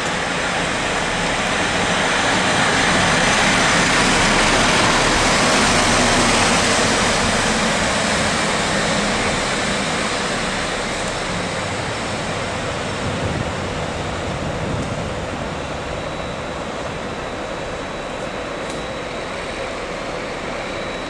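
PKP class EP07 electric locomotive moving along the station track, a steady rumble of running gear and equipment noise that swells and then eases off.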